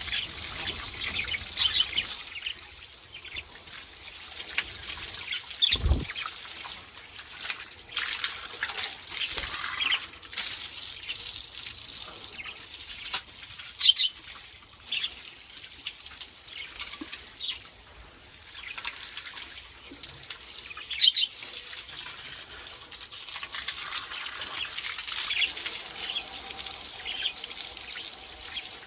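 Running water trickling and splashing steadily while small pet parrots give short high chirps every few seconds. A single dull thump sounds about six seconds in.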